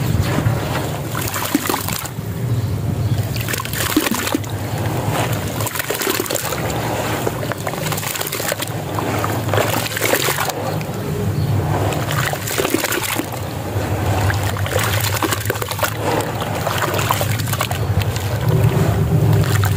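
Hands crumbling and kneading a block of pressed sand in a basin of water: water sloshing and splashing continuously, with irregular small crackles as the wet sand breaks apart.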